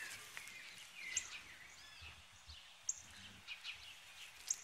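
Birds chirping faintly: short high calls and small rising and falling whistles scattered throughout, over a quiet outdoor hiss.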